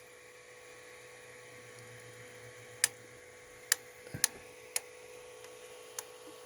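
Tronxy XY2 Pro Titan 3D printer knocking: about five sharp, irregular knocks over a faint steady hum. The filament moves back slightly when it knocks, and the owner wonders whether the extruder is faulty.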